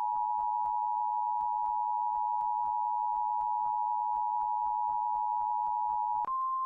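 Emergency broadcast attention signal: a steady, loud two-tone beep with faint ticking about four to five times a second, switching about six seconds in to a single slightly higher steady tone.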